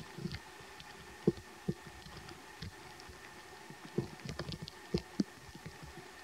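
Scattered short, irregular knocks and clicks, the loudest about a second and a quarter in and a cluster between four and five and a half seconds in, over a faint steady hiss with a thin high steady tone.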